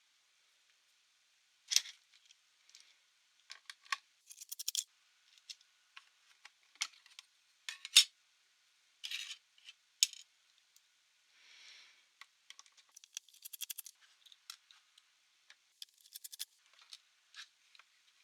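Light clicks, taps and scrapes of hands and small tools working on a laptop's case. There is one sharp click about eight seconds in, and short runs of quick ticking around four to five seconds and again around thirteen seconds.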